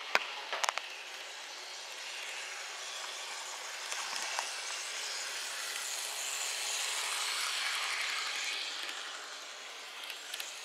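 N-gauge model tram running along the track, its small electric motor whirring; it grows louder about four seconds in as it passes close and fades again near the end. A couple of sharp clicks right at the start.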